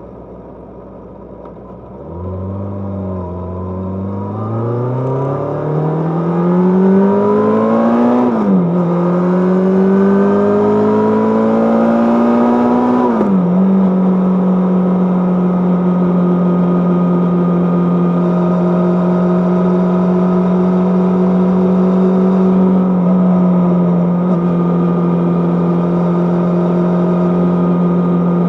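Kawasaki GPZ550's inline-four engine pulling away on a ride. The revs climb, drop at an upshift about eight seconds in, climb again, drop at a second upshift around thirteen seconds in, then hold steady at cruising speed.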